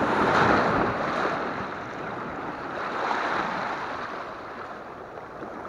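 Sea waves breaking and washing over shoreline rocks, the surf swelling about half a second in and again around three seconds.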